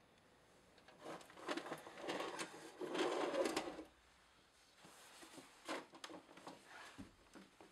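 Pages of a small book being flipped and riffled quickly, a rapid papery fluttering for about three seconds, then softer rustles and a few light clicks as the book is handled.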